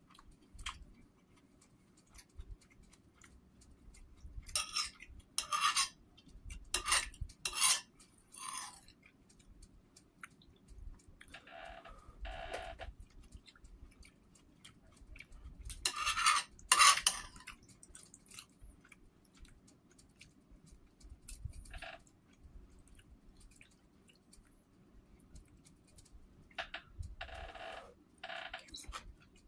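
Metal spoon clinking and scraping in a bowl of soup, with slurps off the spoon, in scattered short bursts a few seconds apart; the loudest come about 16 seconds in.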